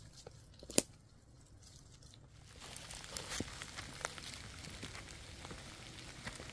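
Footsteps crunching on dry leaves and loose stones, with the dry sticks of a firewood bundle rustling. One sharp click comes about a second in. The crunching grows denser and louder from about halfway through.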